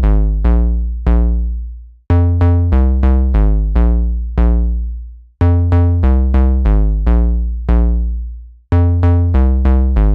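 Intro music: a synthesizer riff of quick, decaying notes over deep bass, the same phrase starting over about every three seconds.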